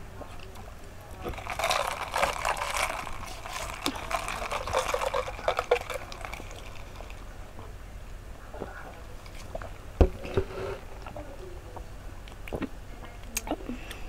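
Oreo milk tea slurped up through plastic straws: a run of wet, crackly sucking and gurgling for about five seconds, then a few small clicks and one sharp knock about ten seconds in.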